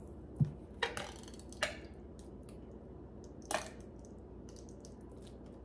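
Plastic squeeze bottle of ketchup squirting into a glass bowl in a few short, sputtering spurts: one about a second in, another soon after, and one past the middle. A soft knock comes about half a second in.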